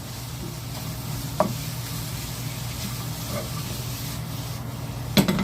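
Chicken and sliced vegetables sizzling as they are stir-fried in a frying pan, with a steady hiss. Two knocks break it, one about a second and a half in and a louder one near the end.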